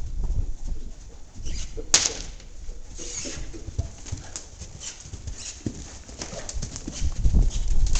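Horse's hooves thudding on soft sand footing as it trots and then canters around a round pen, a run of dull, irregular beats.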